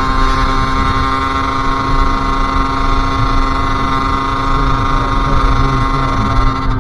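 Sherco SM-R 50's 50cc two-stroke engine running at steady revs while riding, its pitch holding even throughout.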